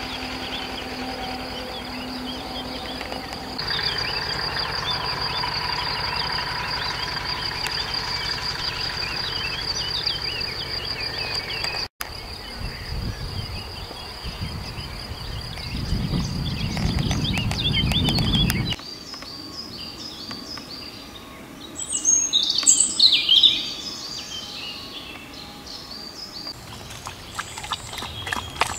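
Birds singing and chirping over a steady high insect trill, with a louder burst of bird calls a little past the middle.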